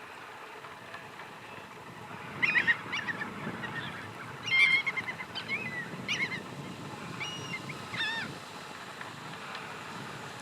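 A large gathering of birds calling: a run of short, high calls that come thickest between about two and a half and five seconds in, then a few more until about eight seconds in, over a steady low background noise.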